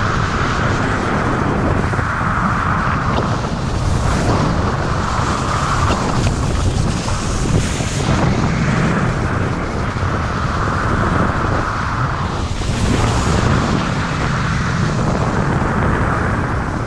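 Skis hissing and scraping over packed snow during a fast run, the scraping swelling and easing every second or two with the turns, over constant wind rumble on the microphone.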